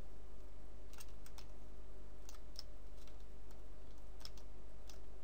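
A few scattered clicks of a computer keyboard and mouse, over a steady low background hum.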